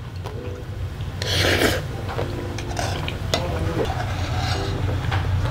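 Spicy jjamppong noodles slurped in one short noisy pull about a second in, over a steady low hum.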